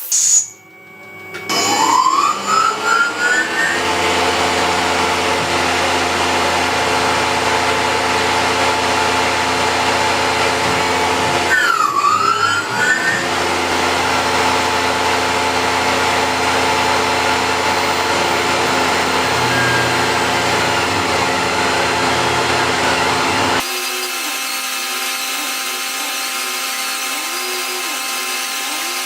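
CNC machine spindle motor spinning up with a rising whine, then running steadily at speed; it drops out briefly and spins up again partway through. Near the end the sound cuts abruptly to a quieter, steady machine sound that pulses about once a second.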